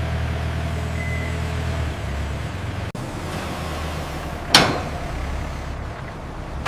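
Steady low mechanical rumble of heavy machinery, with a brief break just before three seconds and a single sharp hiss about four and a half seconds in.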